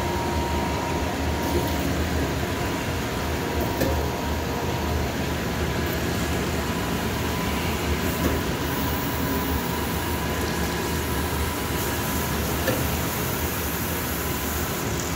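Okamoto ACC 2040 SA1 automatic surface grinder running: a steady machine hum with a thin, even whine and a few faint clicks.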